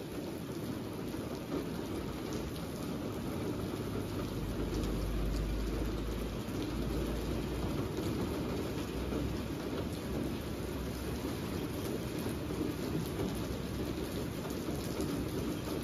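Steady rain falling on a wet street and pavement, an even hiss of raindrops. A low rumble sounds underneath about five seconds in.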